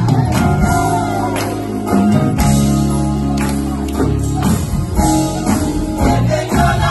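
Gospel choir singing with instrumental accompaniment: a held bass line, guitar and percussion.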